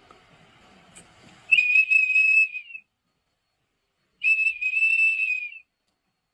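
Two long, steady high-pitched whistles about a second and a half apart, each one dipping slightly in pitch as it ends.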